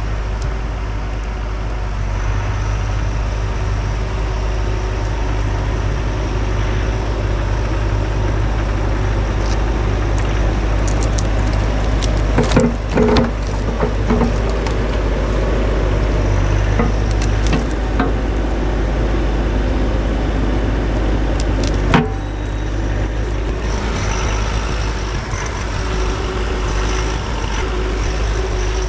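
Bobcat E42 mini excavator's diesel engine running steadily while working. A cluster of knocks comes about halfway through, and one sharp crack comes later.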